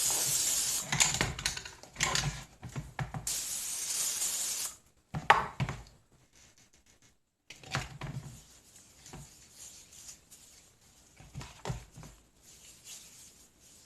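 Cooking oil spray hissing in two bursts, about a second at the start and about a second and a half from three seconds in, as potatoes are coated all over. Knocks and clicks of handling come in between and after, quieter in the second half.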